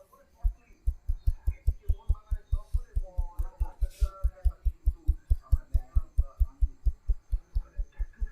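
Rapid, evenly spaced dull thumps, about five a second, from a barber's hands striking the body in percussive massage strokes, starting about half a second in.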